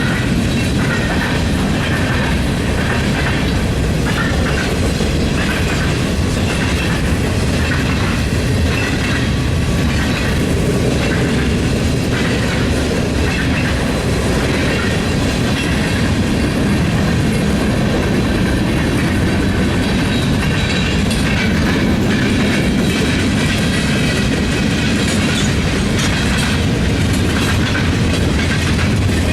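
Freight train cars rolling past at a steady pace: a continuous loud rumble of wheels on rail with intermittent clacks as the wheels pass over the rail joints.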